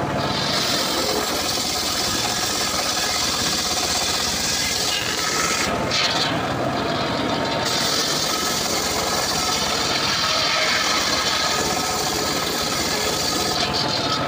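Homemade circular saw bench ripping dry acacia wood: the blade and its drive run steadily with a high hiss of cutting. The cutting hiss drops away for about two seconds near the middle and again just before the end.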